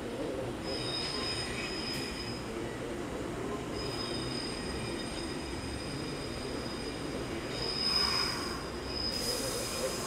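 CAF-built AM-class electric multiple unit's wheels squealing on curved track and pointwork, a thin high squeal that comes and goes and peaks about eight seconds in, over the low rumble of the train running.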